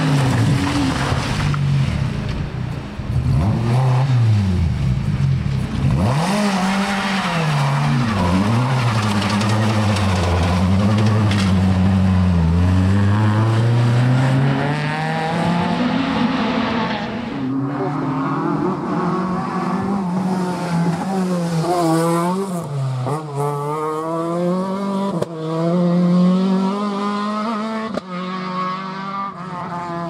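Rally car engines on a gravel stage, revving hard and dropping back repeatedly as the cars brake, change gear and accelerate through the corners; the swings in pitch come faster and closer together in the second half.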